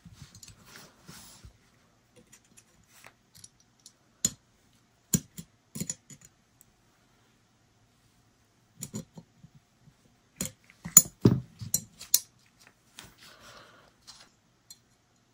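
Small metal clicks and taps from handling revolver parts as a Taurus 856's bolt and bolt spring are pressed back into the frame. There are scattered single clicks, then a quick cluster of sharper clicks about two-thirds of the way through.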